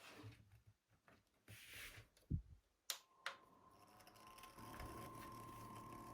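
Faint clicks and knocks of a small plastic fan being handled, then its small electric motor starts about three seconds in and runs with a steady high whine, getting a little louder about a second and a half later.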